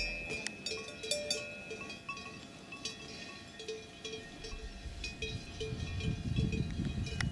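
Cowbells on grazing cattle clanking irregularly, with overlapping ringing tones. A low rumbling noise rises in the second half.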